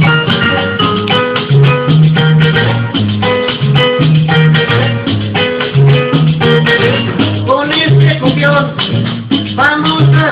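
Upbeat Latin dance music in a salsa style: a repeating bass line under piano chords and shaker, with a singing voice coming in near the end.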